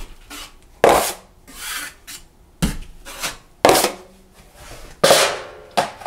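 Wide steel drywall taping knife scraping joint compound in about six separate strokes, each a sharp rasp that fades out, as the mud over a drywall patch is thinned out and smoothed.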